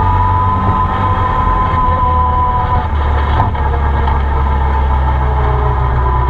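Arctic Cat Wildcat side-by-side driving along a gravel road, heard from the cab: a steady engine and drivetrain drone with a high whine over it. About three and a half seconds in the low drone shifts slightly.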